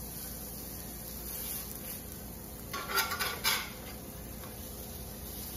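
Metal spatula scraping and clinking against a cast-iron skillet as a searing patty is flipped, a short cluster of scrapes about halfway through. Under it, a steady low sizzle of the cakes frying in oil.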